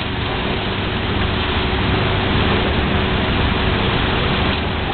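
Boat engine running steadily, with water rushing and churning along the hull.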